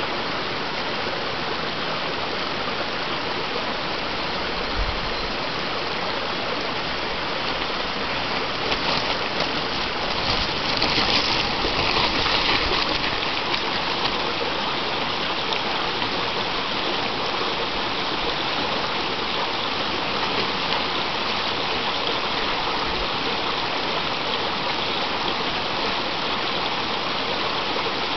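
Steady rushing of a stream running over rocks. About eight to thirteen seconds in, it is briefly louder with the crackle of mountain bike tyres rolling over loose stones close by, and a couple of low thumps are heard.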